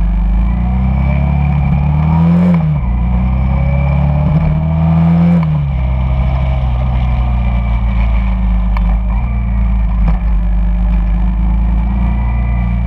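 Honda Shadow cruiser's V-twin engine heard from on board, accelerating: it rises in pitch twice, each time dropping suddenly at a gear change, then runs steadily at cruising speed.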